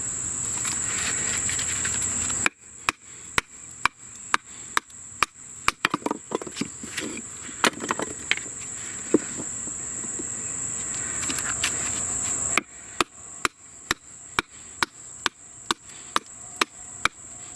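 A wooden baton knocking on the spine of a Victorinox Outdoor Master Mic L knife, driving the blade through a piece of freshly dead wood to split it (batoning). A steady run of sharp knocks, about two a second, starts a couple of seconds in. Insects chirr steadily at a high pitch throughout.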